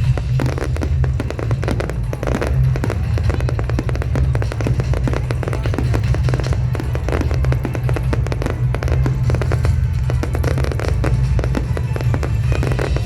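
Fireworks going off in quick succession, dense bangs and crackles throughout, over loud music with a heavy bass.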